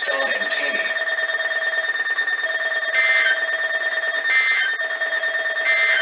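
NOAA weather radio sounding its alert alarm for a Flash Flood Warning: a steady electronic tone with a short, higher beep that repeats about every second and a half, three times in the second half.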